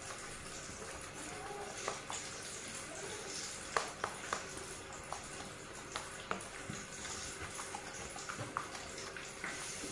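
A hand tossing and pressing chicken pieces in a stainless steel bowl of dry flour to build a flaky, crispy coating. Scattered soft knocks and clicks come as pieces and fingers hit the bowl, the sharpest a few close together about four seconds in, over a steady faint hiss.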